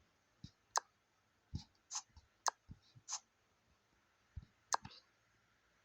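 Scattered sharp clicks and light knocks from a new hair-care product container being opened and handled, about a dozen irregular clicks, a few with a soft thud.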